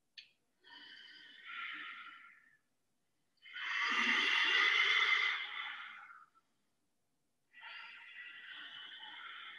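Ujjayi breathing: three slow, audible breaths drawn through a narrowed throat, each a soft hiss, the middle one the loudest.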